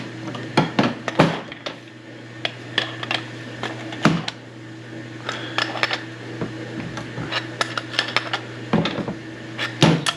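Scattered metallic clicks and clinks of threaded fittings and adapters being handled and tightened onto a small water meter, over a steady low hum.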